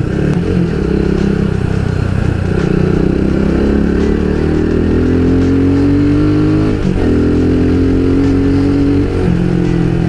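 Rusi Sigma 250 motorcycle engine running under way, climbing steadily in pitch as it accelerates. About seven seconds in there is a brief break, and the engine picks up again at a lower pitch as a gear is shifted. It then holds steady and eases off near the end.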